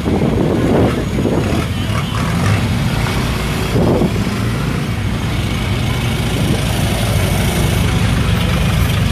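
Vehicle engines running steadily close by, with a deep, even rumble and a few brief voices in the background.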